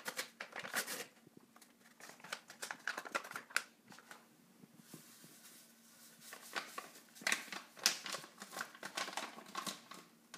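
A plastic dessert-mix sachet crinkling and crackling as it is handled and opened, then emptied into a glass bowl of milk, with a run of crackles near the end as the packet is shaken out.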